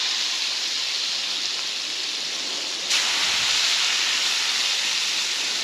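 Kingfish fillets sizzling in hot, slightly burnt butter in the pan of a Cobb gas grill, a steady frying hiss that gets louder about three seconds in as more fish goes into the pan.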